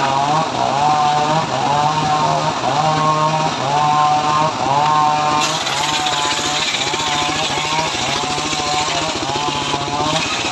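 Engine-driven homemade circular sawmill running, its note wavering in a regular cycle about three times every two seconds. About halfway through, the blade cuts into a teak plank, adding a harsh high cutting noise that stops shortly before the end.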